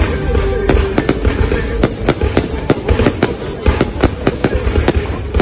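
Fireworks display: a rapid, continuous barrage of sharp bangs and crackles, several a second, over a steady low rumble of launches and explosions.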